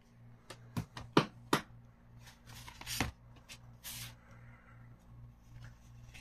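Cardboard and plastic CD packaging being handled: a handful of sharp clicks and taps in the first three seconds, with soft paper-like rustling in between and again about four seconds in.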